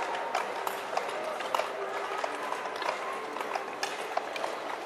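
Speed-skating rink ambience: a steady noisy background with many scattered sharp clicks and knocks at uneven spacing, and faint distant voices.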